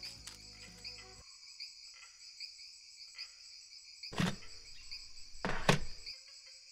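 Crickets chirping steadily in repeated pulses, with the tail of background music ending about a second in. Two dull thumps come about four and five and a half seconds in, the second the loudest.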